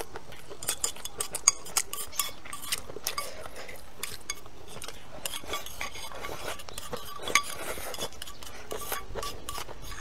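Chopsticks clicking and scraping rapidly against a glazed earthenware bowl as the last rice is swept from the bowl into the mouth.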